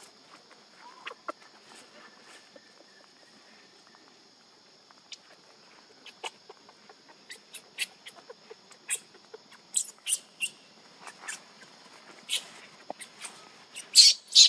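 Newborn macaque giving short, shrill squeaking cries: a distress call for its mother. The cries are few at first, then come faster and louder toward the end.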